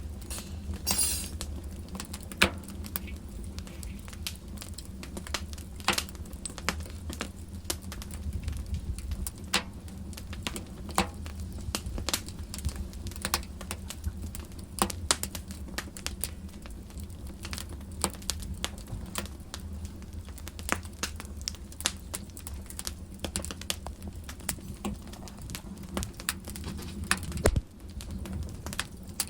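Wood fire in a fireplace crackling, with irregular sharp pops and snaps over a low steady rumble.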